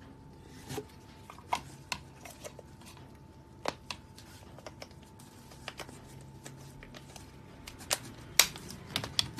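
Plastic lint rollers with pink handles clicking and knocking against each other as they are handled and picked out of a box full of them: scattered sharp clicks at irregular intervals, the loudest about eight and a half seconds in.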